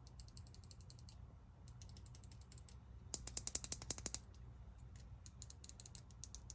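Faint runs of quick, small clicks, like a ratchet, from a taken-apart wireless mouse's parts being handled. The fastest and loudest run comes about three seconds in, at roughly ten clicks a second.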